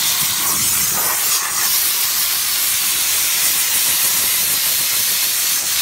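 Steam jetting steadily from the wand of a Chief Steamer 125 psi steam cleaner against the inner fender well: a loud, steady hiss.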